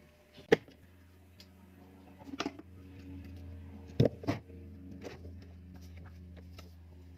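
Several sharp clicks and knocks from handling the soldering tools and the plastic parts of a small clip fan. The loudest comes about half a second in and a close pair about four seconds in, over a low steady hum.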